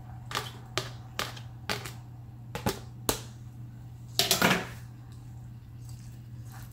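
Metal perforated spoon knocking against a steel pan, about six sharp clicks as chopped tomatoes are knocked off into it, then a short scrape as the spoon stirs them in over the drumsticks. A steady low hum runs underneath.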